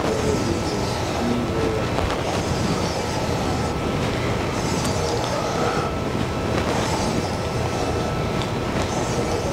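Steady, loud mechanical noise, a rumble with hiss, with a faint high steady tone running through it and a few faint short squeaks in the first two seconds.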